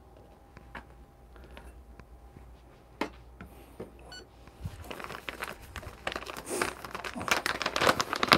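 A metal dosing cup clicks down onto a digital kitchen scale and the scale beeps once as it is tared. Then a coffee bean bag crinkles and rustles as it is handled, growing louder toward the end.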